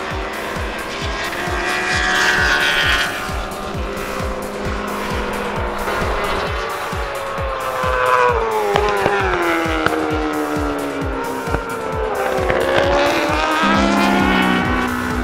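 Background music with a steady fast drum beat, mixed with racing motorcycle engines at speed; an engine note falls steadily in pitch for several seconds from about eight seconds in.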